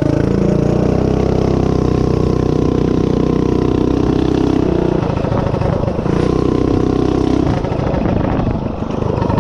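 Governor-removed Predator 212cc single-cylinder four-stroke on a DoodleBug DB30 mini bike, opened from idle to full throttle as the bike takes off. It holds high revs, dips briefly about five seconds in, comes back up, then eases off near the end.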